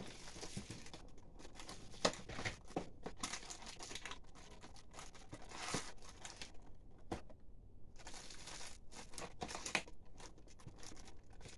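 A cardboard advent calendar being pried and torn open by hand, with paper crinkling: an irregular run of rustling and tearing with a few sharp clicks, and a short lull about seven seconds in. The calendar is battered and opens badly.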